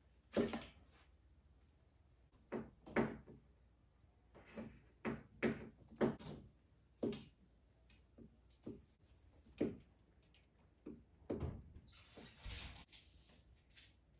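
Irregular knocks and clunks, about a dozen spread unevenly through the stretch, from 8/3 electrical cable being handled and fastened up along basement ceiling joists.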